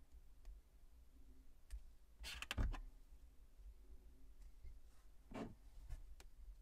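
Small plastic Plus-Plus building pieces clicking as they are handled and snapped together: a quick cluster of clicks about two and a half seconds in, the loudest, and a couple of softer clicks later on.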